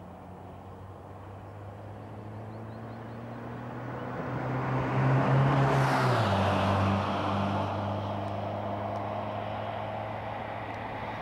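British Rail mainline diesel locomotive hauling freight, its engine running under power with exhaust smoke showing, together with wheel noise on the rails. The sound grows as the train approaches, peaks as it passes, and the engine note drops in pitch at that moment (about six seconds in) before fading away.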